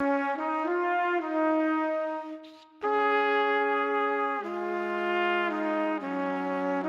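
Background music of long held, brass-like notes changing chord every second or so, with a brief break about two and a half seconds in.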